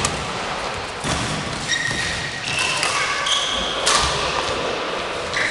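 Badminton rally: sharp racket-on-shuttlecock hits about a second in and again near four seconds, with short high squeaks of court shoes on the sports flooring in between.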